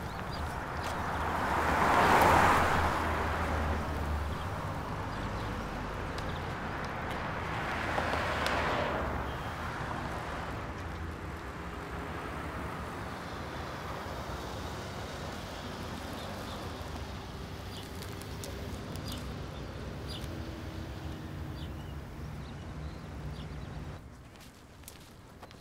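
Two cars passing by, one about two seconds in and another about six seconds later, each rising and fading away. Then a steady outdoor traffic hum with a few faint bird chirps.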